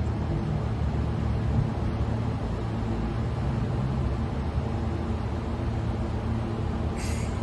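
Queensland Rail electric train standing at the platform, its onboard equipment humming steadily with a low drone. A short hiss comes near the end.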